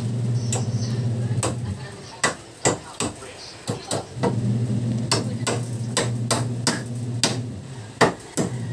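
Claw hammer striking a wooden stair handrail again and again, a run of sharp blows at about two a second, spaced unevenly. A steady low hum runs underneath, dropping away for a couple of seconds in the middle.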